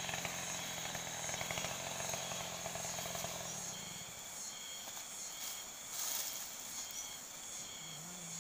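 Steady high chirring of insects such as crickets, over a low steady motor-like hum that stops about three and a half seconds in. A brief scratchy noise comes about six seconds in.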